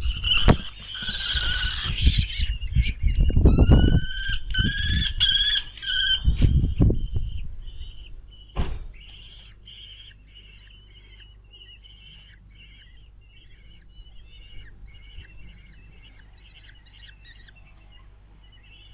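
Common kestrel chicks calling shrilly in a wooden nest box, with heavy thumping and scrabbling of birds moving about in the box during the first seven seconds or so. After that comes a long run of short, fainter repeated calls.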